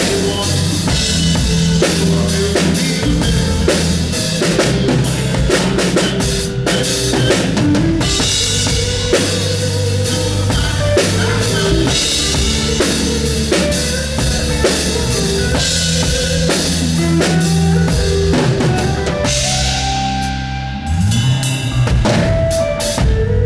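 Drum kit played in a full band groove, with kick drum, snare and cymbals over bass and other pitched instruments. About 20 seconds in the playing thins briefly with a rising low slide, then the band comes back in.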